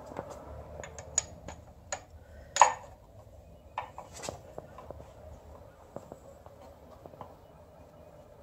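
Scattered light metallic clinks and taps of a bolt and hand tools against the engine block and aluminium adapter plate while a bolt is worked into place by hand, with one louder clink a little over two and a half seconds in.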